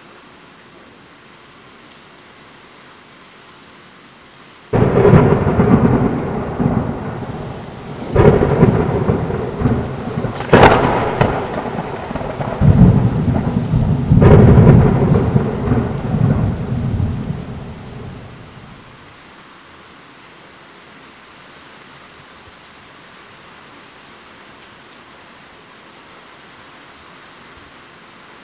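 Steady rain falling, broken about five seconds in by a sudden clap of thunder that rolls on in several loud crashes, the sharpest about halfway through, then rumbles away over some fifteen seconds.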